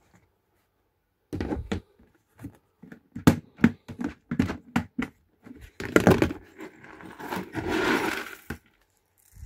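Cat food being put out: a run of sharp knocks and clatters from a bowl and packaging, then a rustling rush lasting about a second and a half near the end.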